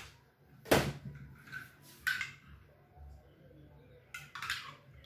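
A metal spoon clinking and knocking against a ceramic mug, a few short knocks with the loudest about a second in.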